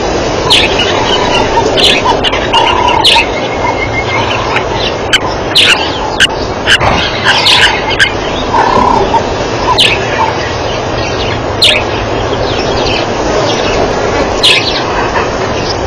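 A pack of African wild dogs twittering: many short, high-pitched, bird-like chirps and squeaks, irregular and overlapping, over a steady background hiss.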